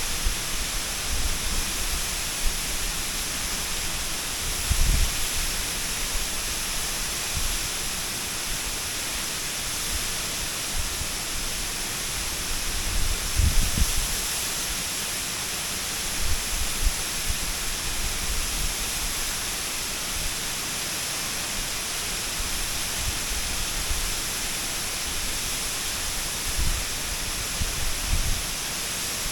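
Waterfall crashing steadily, a dense even hiss of falling water. A few brief low rumbles break through now and then, the strongest about halfway.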